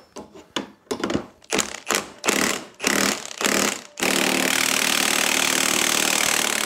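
Milwaukee cordless impact wrench hammering on the seized top nut of a magnetic ride strut whose shaft is held with locking pliers: several short bursts, then one continuous run from about four seconds in. The nut is stuck and turning only a thread at a time.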